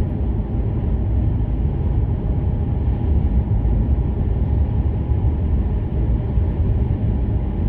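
Steady low road and engine rumble inside a moving car.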